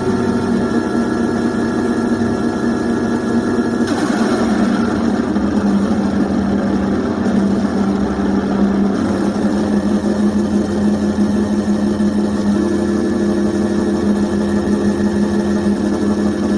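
Harsh noise / dark ambient drone: a dense, steady mass of humming tones and grainy noise, something like an idling engine. About four seconds in the texture shifts suddenly into rougher noise, and a further held tone joins around two thirds of the way through.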